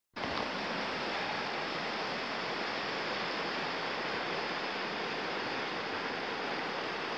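Steady rush of a fast river running with white water, starting suddenly right at the beginning.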